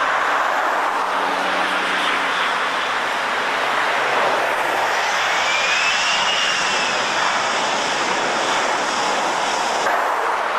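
Boeing 737 airliner's CFM56 jet engines during touchdown and landing roll, a loud, steady jet rush. Around the middle, a whine rises and then falls in pitch.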